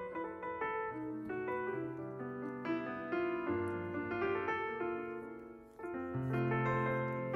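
Background piano music: a slow melody of held notes and chords, briefly fading about five and a half seconds in before fuller low chords come back in.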